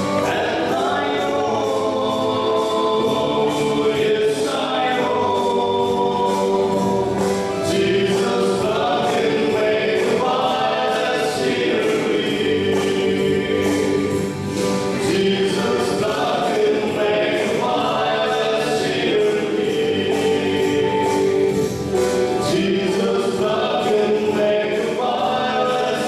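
Male vocal quartet singing a gospel song in harmony into microphones, with long held notes.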